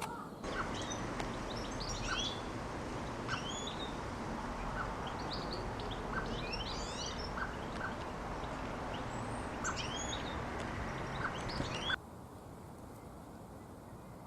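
Small garden songbirds singing and chirping in quick high phrases, with a short lower note repeating about once a second, over a steady background hiss and hum. The sound cuts off abruptly about twelve seconds in, leaving only a quieter hiss.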